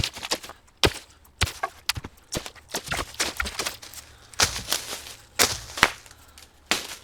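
Footsteps crunching through dry leaf litter and snapping twigs on a forest floor, an uneven tread of about two steps a second.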